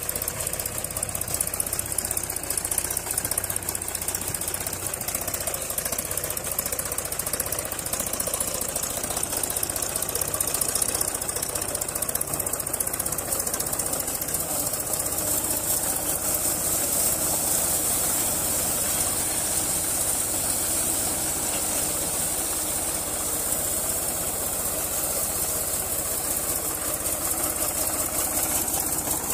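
Mahindra 275 DI TU XP Plus tractor's three-cylinder diesel engine running steadily under load, pulling a cultivator through the soil.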